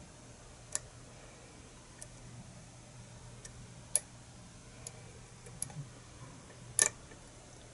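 Metal lock pick working the pin tumblers of a key-in-knob lock cylinder under tension: scattered sharp metallic clicks of pins being lifted and set, the loudest a quick double click near the end.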